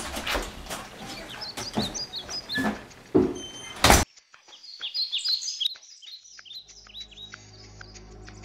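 Scuffs and knocks ending in a sharp burst of noise about four seconds in; then birds chirping, joined a couple of seconds later by soft music with long held notes.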